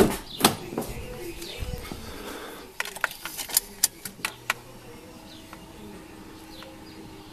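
Two loud bangs of the car being shut, the second about half a second after the first, then a quick run of sharp clicks about three to four and a half seconds in as the Ford Focus's ignition is switched on. Birds chirp faintly.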